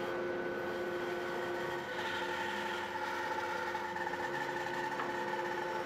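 Bandsaw running and cutting through a birdseye maple neck blank, sawing off the angled wedge for a scarf joint: a steady motor hum with the blade's cutting noise, stronger about two seconds in.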